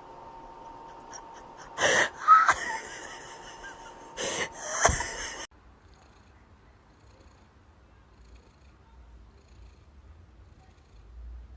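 A cat makes two short, loud, breathy bursts about two and a half seconds apart, then the sound cuts to a faint low rumble.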